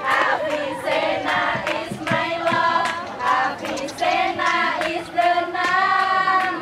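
Group of young women singing together, several voices on held notes, with a few hand claps in between.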